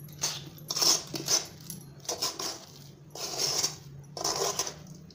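Metal spoon scraping and clinking against a metal kadhai in irregular strokes, stirring thick coconut-and-sugar ladoo mixture so that it does not stick to the bottom of the pan.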